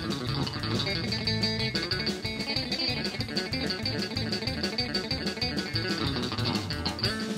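Live electric guitar instrumental played on a double-neck electric guitar through an amplifier: quick picked notes over a steady drum beat.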